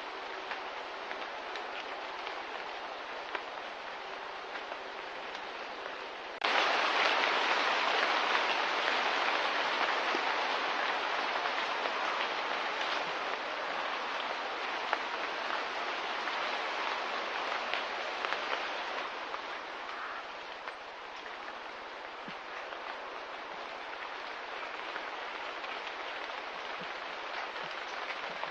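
Steady hissing outdoor ambience that jumps suddenly louder about six seconds in, then slowly eases back.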